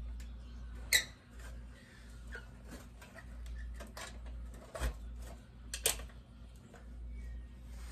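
Scattered clicks and metal taps from handling an electric kiln's sheet-metal control box and its screws, with three sharper knocks about one, five and six seconds in.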